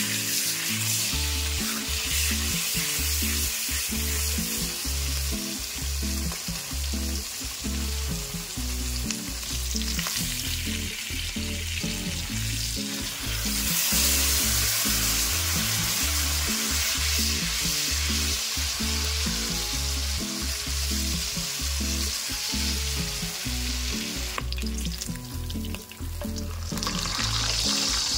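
Pork chop sizzling in hot oil in a frying pan, the sizzle growing louder about halfway through and again near the end. A music track with a stepped bass line plays underneath.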